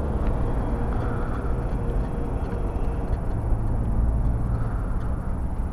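Yamaha V Star 650's V-twin engine running steadily at low speed as the motorcycle rolls along slowly.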